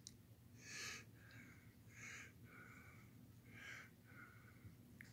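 Faint wheezy breathing: a short rough breath followed by a thin whistling breath, repeating about every second and a half.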